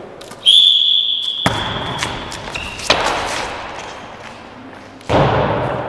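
A whistle blows one long blast, then a handball thuds and knocks in a large echoing sports hall: a thump about a second and a half in, a sharp knock near three seconds, and another loud thud about five seconds in.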